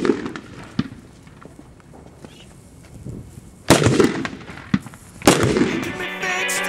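Brothers Pyrotechnics La Bomba firecracker, loaded with about 3 g of flash powder. About four seconds in it flares with a sudden hissing rush for a second and a half, then goes off with one sharp bang. Music starts near the end.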